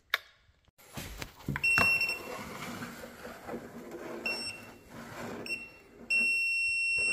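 Electronic stud finder sliding along the wall, giving a few short beeps and then one long steady beep near the end as it sits over a stud.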